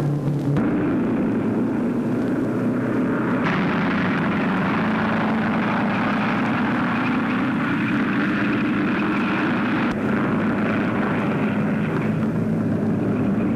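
Open-wheel race car engines running at speed in a steady drone. The sound shifts abruptly about half a second in and again about three and a half seconds in.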